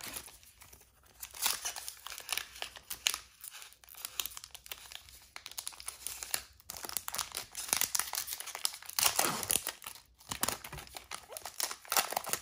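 Foil trading card pack wrapper crinkling and tearing as it is peeled open by hand, an irregular crackle that comes and goes, loudest about nine seconds in and again near the end.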